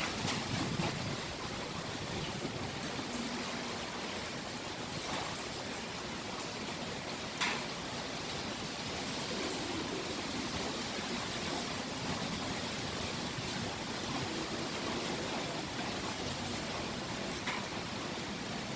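Typhoon wind and rain rushing steadily, with a brief sharp tick about seven seconds in.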